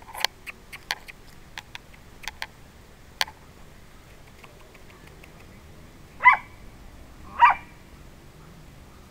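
A dog barking twice, about a second apart, at a Muscovy duck. Before that there are scattered short sharp clicks and taps.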